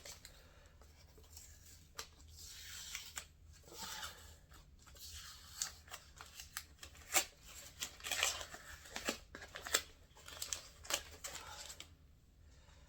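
Painter's tape and a vinyl skin being handled on a plastic RC car body: irregular rustling, peeling and scraping with a few sharp clicks, stopping shortly before the end.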